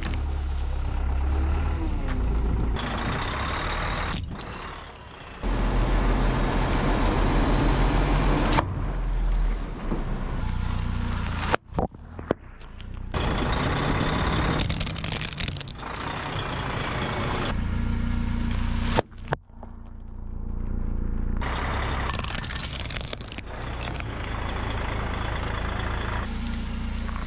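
A vehicle's engine running low while its tyre rolls over and crushes plastic toys, with sharp cracks and crunches as the plastic breaks. The sound changes abruptly every few seconds.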